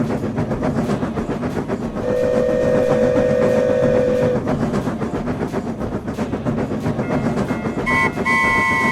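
Train running with a fast, steady clatter of wheels on rail. About two seconds in it sounds one steady note lasting about two seconds, and near the end two short, higher toots.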